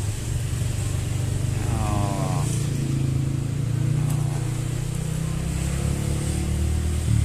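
Steady low hum of a motor vehicle engine running, with a brief higher-pitched tone about two seconds in.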